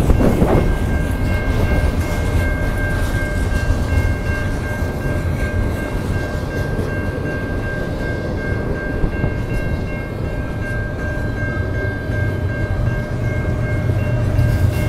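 Double-stack intermodal freight train rolling past at a grade crossing, with a steady rumble of wheels on rail, while the crossing's low-pitch Safetran Type 3 electronic bell rings continuously. A low drone builds near the end.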